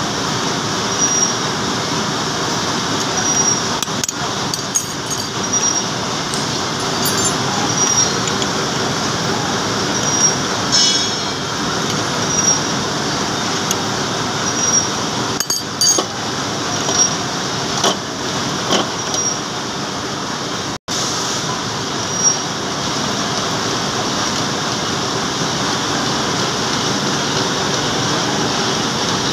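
Metal lathe running and cutting a steel bar, the tool scraping off chips with a steady machining noise, a short high tick about once a second and scattered clinks of metal chips. The sound cuts out for an instant about two-thirds of the way through.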